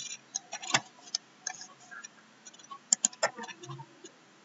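Scattered, irregular clicks of a computer mouse, the loudest a quick run of clicks about three seconds in.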